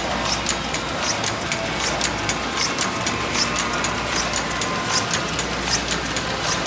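F.L. Smith SO envelope machine running, turning out small coin envelopes: a fast, regular mechanical clatter over a steady low hum.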